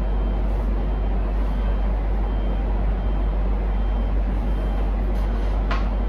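Steady low rumbling background noise with a hiss over it, and a brief sharp sound near the end.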